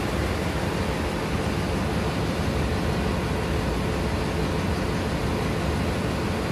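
Steady, loud running noise of diesel machinery filling a ship's engine room, an even roar with no distinct knocks or tones.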